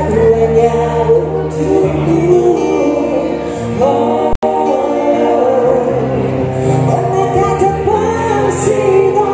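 Live acoustic duo: a woman singing a ballad into a microphone over a strummed acoustic guitar, both through a PA, with hall reverb. The audio drops out for a split second about four seconds in.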